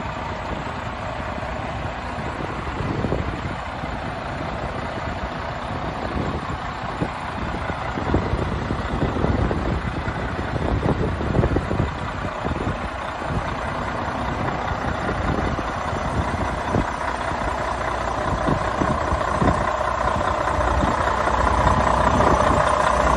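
Freightliner semi tractor's diesel engine idling steadily, growing louder near the end.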